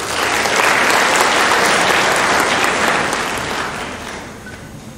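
Audience applauding in a hall, starting at once, holding steady for a few seconds and then dying away near the end.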